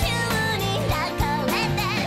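Upbeat pop song: a woman singing a melody with vibrato over a band with a steady drum beat.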